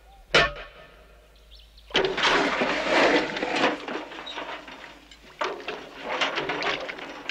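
A sharp knock about half a second in, then hot iron plate held in tongs being quenched in a pot of water, hissing and sizzling loudly from about two seconds in, easing off, and hissing again near the end.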